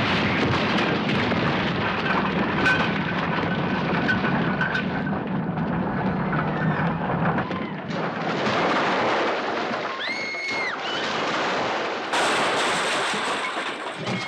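Destruction sound effects: continuous crashing and rumbling of breaking debris, changing in character about eight and twelve seconds in, with a brief high whine about ten seconds in.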